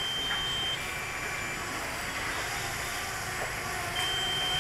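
Electronic beeps from radio-control flight gear: a high beep under a second long, then a slightly lower one, and another high beep near the end, over steady background noise.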